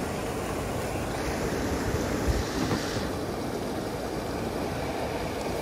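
Steady rushing of a mountain river, an even wash of water noise with no break.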